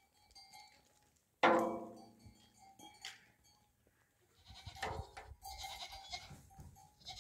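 Bleating from a flock of sheep and goats: one loud bleat about a second and a half in, then more, fainter animal calls in the second half.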